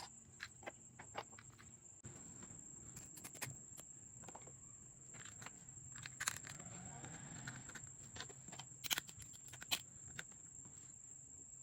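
Small plastic toy kitchen pieces being handled, giving scattered light clicks and taps, the sharpest a few near the end.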